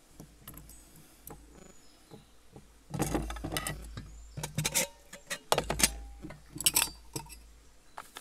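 Lightweight aluminium camping pots, kettle and metal folding cutlery clinking and clattering as they are handled and stacked, the kettle being nested into the pan. Quiet handling at first, then scattered sharp clinks and knocks from about three seconds in, over a low rumble.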